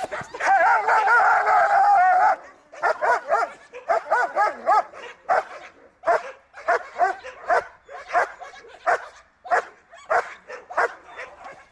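German shepherd-type dog barking excitedly at a hidden helper in a bark-and-hold exercise. It opens with a high, wavering whine of about two seconds, then gives a rapid run of high-pitched barks, about two a second.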